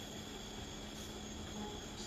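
Quiet room tone during silent prayer: a steady faint hiss with a low hum and a thin, steady high-pitched trill like crickets, and no voices.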